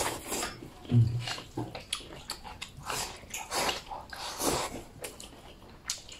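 Noodles being slurped from a bowl and chewed, in several separate noisy slurps, with a short low hum about a second in.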